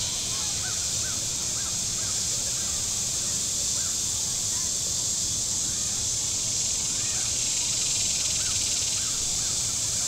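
Cicadas on the shore in a steady high-pitched buzzing chorus, with many short faint bird calls over it and a low rumble underneath.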